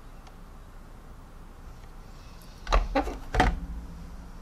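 A quick clatter of knocks and then one more knock about half a second later, near three seconds in: a plastic model kit and small tools being moved and set down on a cutting mat.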